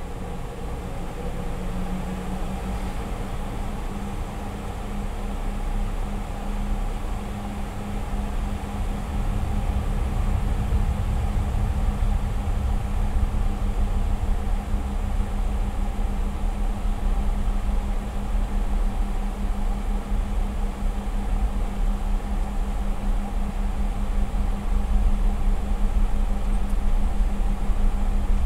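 Cabin noise of a Boeing 717 taxiing onto the runway. The steady hum of its rear-mounted Rolls-Royce BR715 turbofans runs under a low rumble that grows louder from about a third of the way in.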